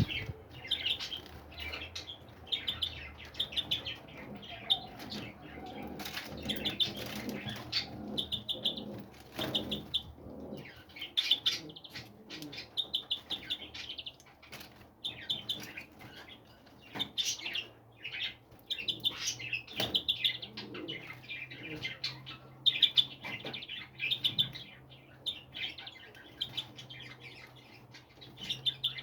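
Small songbirds chirping in quick, repeated short notes throughout, with frequent brief wing flutters and taps among them.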